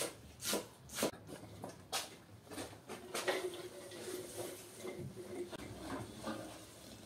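A few knife chops on a wooden chopping board in the first two seconds, then shredded cabbage rustling and sliding out of a stainless steel bowl into a large pan, with the bowl rubbing against the pan's rim.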